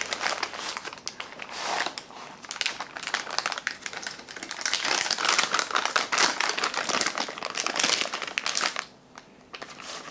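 Crinkling and rustling of a green plastic MRE flameless ration heater bag as it is slid out of a cardboard sleeve and opened by hand. The rustling is loudest through the middle and dies down about nine seconds in.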